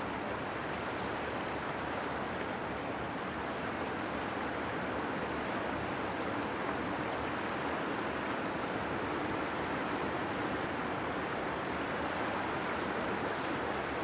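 Steady rushing noise of river water, with the low running drone of a passing inland cargo ship's diesel blended into it.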